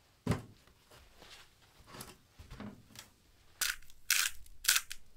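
A single thump, then faint handling noises and a quick run of sharp, crackly rustles in the last second and a half, as items are handled during cooking preparation.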